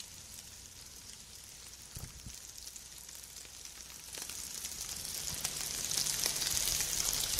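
Food sizzling on a grill: a steady crackling hiss that grows louder over the last few seconds.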